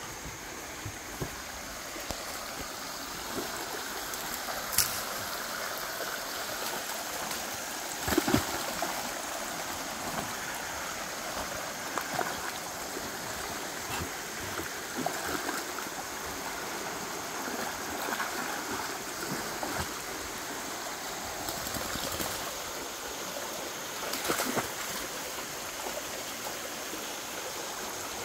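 Muddy, flood-swollen creek rushing steadily, with a few brief knocks near the bank.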